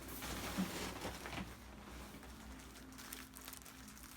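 Faint rustling and shifting of a patient turning over on a padded chiropractic treatment table, settling into quiet room tone with a faint steady hum near the end.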